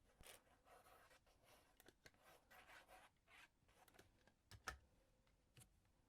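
Faint rustling and rubbing of card and paper being handled and pressed into place, with a light tap about four and a half seconds in and another near the end.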